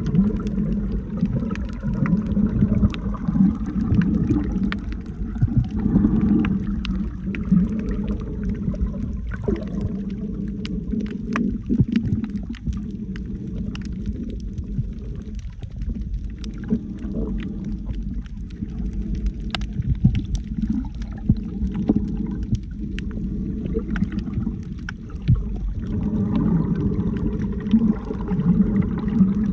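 Muffled underwater sound picked up by a submerged camera while snorkeling: a low, surging water rumble that eases off in the middle and swells again near the end, with many faint scattered clicks and crackles.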